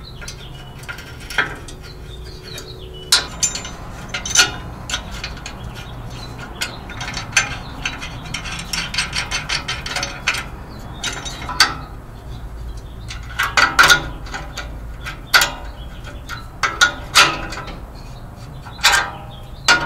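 Small ratchet wrench clicking in quick runs while nuts on a steel U-bolt clamp are tightened, with scattered sharp metallic clinks from the wrench and hardware being handled.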